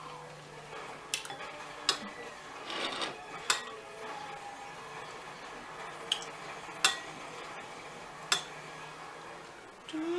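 Quiet eating and food-handling sounds: cutlery and food scraping and tapping against a dish, with about six sharp clicks spread through and a brief scrape a little under three seconds in.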